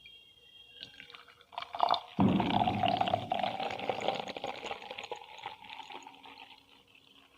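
Thums Up cola being poured out, after a few small clicks. The pour starts loudly about two seconds in and tapers off over the next five seconds.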